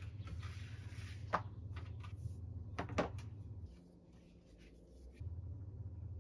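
Objects and papers being handled on a desk: a few light knocks and taps, the clearest about a second and a half and three seconds in, over a low hum that drops out for about a second and a half.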